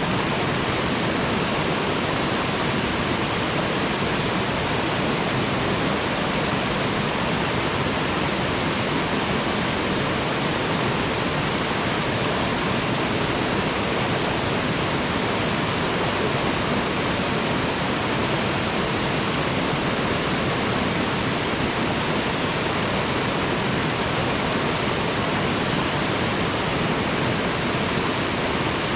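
Waterfall: water falling and splashing in a steady, even rush with no breaks or changes.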